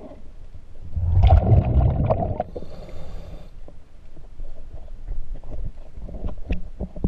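Underwater knocks and clicks of hands and a tool working at a boat's propeller shaft to change the zinc anode, heard muffled through water, with a loud low rumble about a second in.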